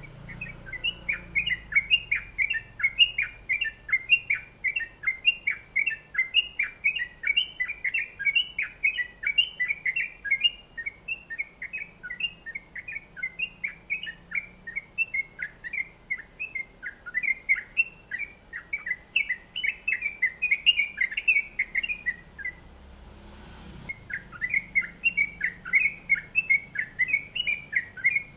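Caged songbird singing a long, fast run of repeated chirping notes, several a second, breaking off briefly about three quarters of the way through and then starting again.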